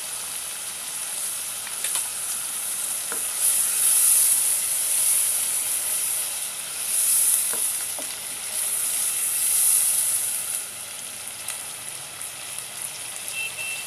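Spice paste frying in ghee and oil in a nonstick pot, sizzling steadily as a wooden spatula stirs it, the sizzle swelling louder a few times. A few faint taps of the spatula against the pot.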